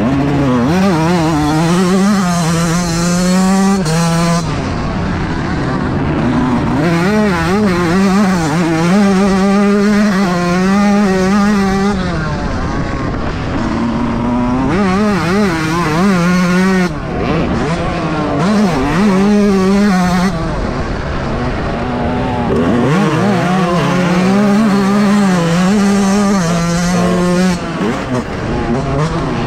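Yamaha YZ125 two-stroke single-cylinder engine revving hard on a motocross lap, its pitch rising and falling again and again. It drops off briefly several times where the throttle is chopped.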